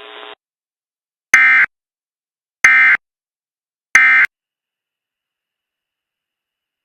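Emergency Alert System end-of-message data bursts: three short electronic bursts about 1.3 seconds apart, the digital code that marks the end of the flash flood warning broadcast.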